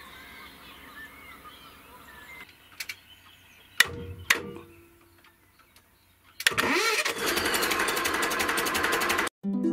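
Narrowboat's inboard diesel engine starting: two sharp clicks about four seconds in, then the engine catches about six and a half seconds in with a rising sweep and runs with a fast, even clatter until it cuts off abruptly.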